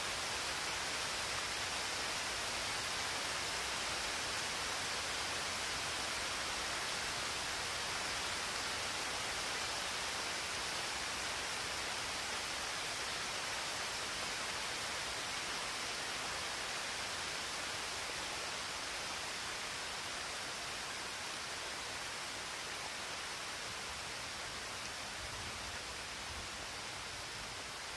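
Steady, even hiss of noise with no drumbeats in it, slowly getting quieter.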